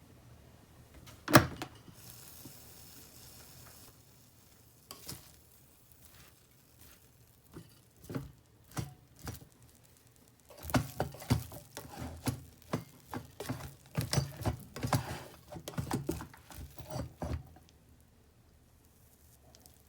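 Kitchen clatter: a sharp knock, a short hiss, then a run of light knocks and clinks of utensils against cookware and dishes.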